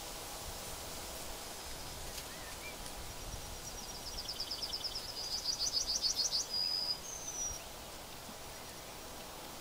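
A small bird singing over a steady outdoor background hiss. From about three seconds in, it gives a fast run of high repeated notes that grows louder, ending in a short trill and one higher note near seven seconds.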